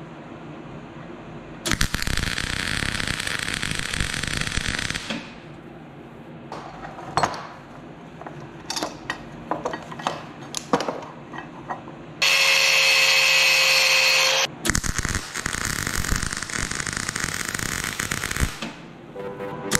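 Arc welding steel: two welds of a few seconds each give a steady sizzle, the first near the start and the second near the end. Between them, steel clamps and parts clink and knock as they are repositioned, and there is a louder, steady power-tool whir for about two seconds.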